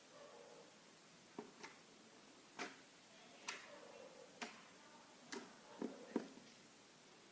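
Faint, irregular sharp clicks and light taps, about eight of them spaced unevenly.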